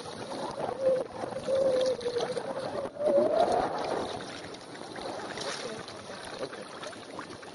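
Water sloshing and splashing as an elephant wades through a lake. In the first half a single long, wavering pitched sound rises in pitch just before it stops.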